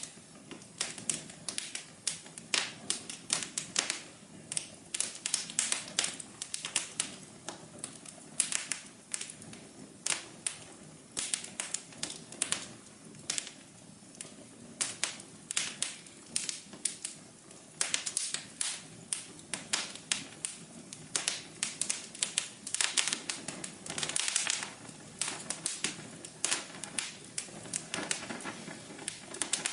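Wood fire crackling and popping, with many sharp irregular snaps over a low steady hiss and rumble of flames.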